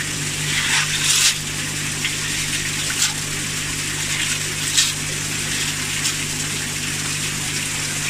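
Water gushing and splashing through the central pipe and chamber of an Evolution Aqua Nexus 320 pond filter, steady throughout, over a low steady hum. A few short sharp sounds come about one, three and five seconds in.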